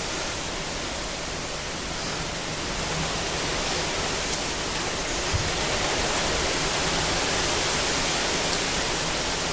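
Steady hiss of background noise, with two faint clicks about four and five seconds in.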